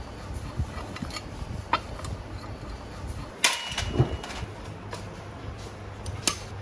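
Metal engine parts and hand tools clicking and clinking as an RT140 diesel engine is taken apart. A brighter metallic clink with a short ring comes about halfway through, followed by a dull thud and, near the end, another sharp click.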